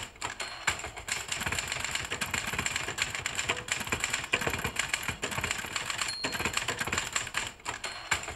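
Typewriter being typed on rapidly: a dense, continuous clatter of key strikes with no pauses for the carriage.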